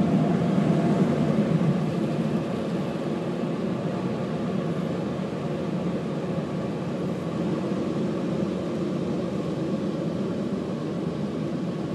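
Automatic car wash heard from inside the car's cabin: hanging cloth wash strips sweeping over the windshield, with the wash machinery, make a steady low noise, a little louder for the first two seconds.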